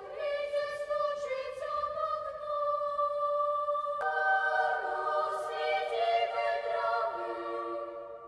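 Children's choir singing a cappella in long held chords, the chord changing a few times.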